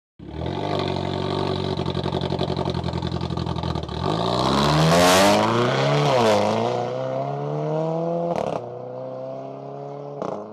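Renault Clio IV RS Cup's turbocharged 1.6-litre four-cylinder, ethanol-tuned to 250 hp, running steadily, then revved: the note climbs, dips and climbs again before settling. Sharp cracks come about eight and a half seconds in and again near the end, and then the engine cuts off.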